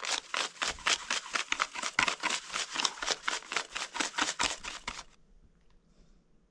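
Hand whisk beating egg yolks in a bowl, rapid rhythmic clicking and scraping strokes at about five or six a second, stopping suddenly about five seconds in.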